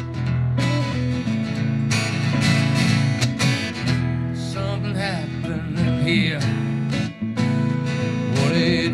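Music: a guitar-led rock song with strummed guitar, its instrumental backing running steadily.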